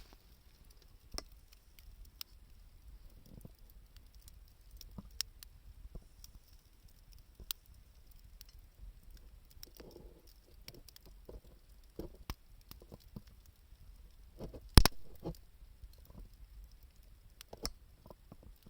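Wood campfire crackling, with sharp pops and snaps at irregular intervals, one much louder pop about fifteen seconds in.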